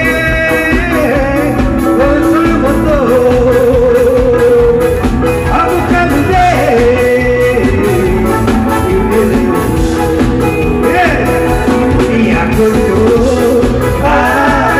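A man singing a song into a microphone through the stage PA, backed by a live band with a steady beat. Around three seconds in he holds a long note with vibrato.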